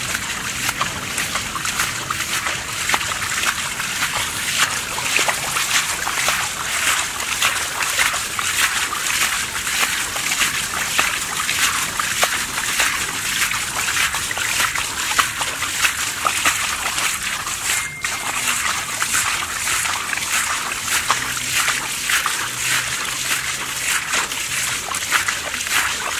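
Hands splashing and sloshing in shallow muddy water, a steady run of small splashes and trickles as they grope through the mud.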